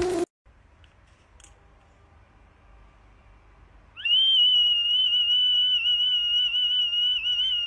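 A whistle held in a golden retriever's mouth sounds one long, high, slightly wavering note, starting about halfway through after a near-silent stretch.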